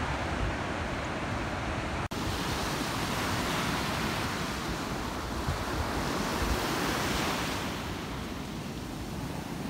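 Ocean waves breaking, a steady rush with wind on the microphone; the sound cuts out for an instant about two seconds in, then the surf and wind go on.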